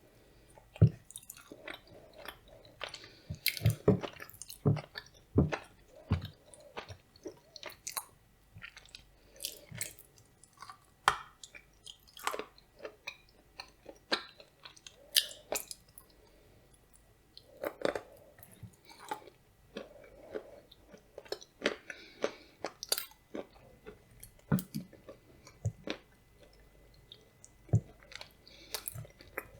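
A person chewing blueberry soufflé with nuts close to the microphone, with many sharp, irregular crunches as the nuts break between the teeth.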